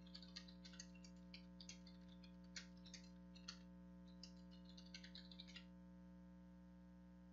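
Faint keystrokes on a computer keyboard: an irregular run of quick clicks that stops about five and a half seconds in, over a low steady electrical hum.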